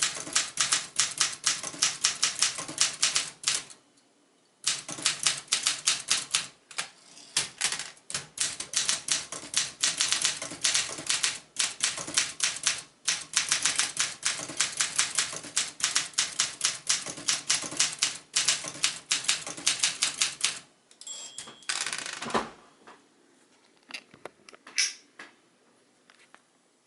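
1969 Olympia SM9 manual typewriter being typed on in fast, steady runs of key strikes, with brief pauses between bursts. About 21 seconds in a short bell ding sounds, followed by the longer ratcheting slide of the carriage return, a few last clicks, and then it goes quiet.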